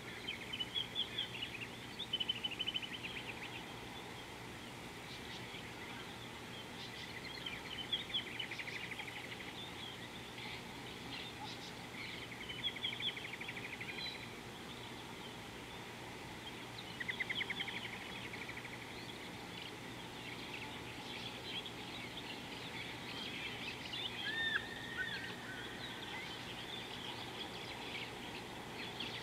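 Wild birds calling: short rapid trills and chirps come in bursts every few seconds, over a steady background hiss.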